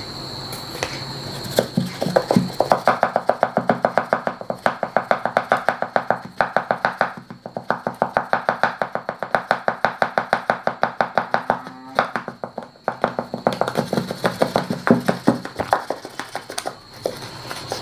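Rapid, steady tapping, several taps a second, of fingers on a plastic funnel seated in a plastic pipe, shaking loose black powder down into the pipe, with two short pauses.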